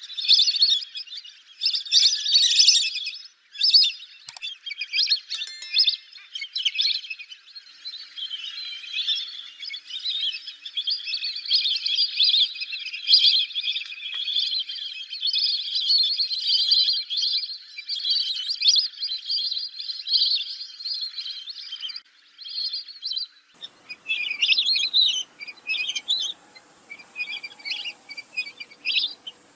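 Lesser whistling ducks calling: shrill, repeated whistled notes. For much of the time they overlap into a dense chorus, and near the end they break into separate calls.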